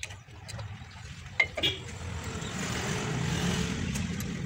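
Light metallic clicks and taps of brake parts being fitted by hand on a rear drum-brake backing plate, the sharpest about a second and a half in. Behind them a vehicle's engine noise builds up over the last few seconds.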